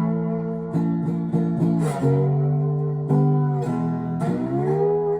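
Homemade four-string fretless guitar with a blue cedar body and a pickup, in open E tuning, being played: plucked notes and strums ring out, several of them sliding up or down in pitch.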